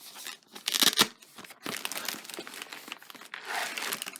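Plastic packaging crinkling and rustling in irregular bursts as it is handled, loudest about a second in.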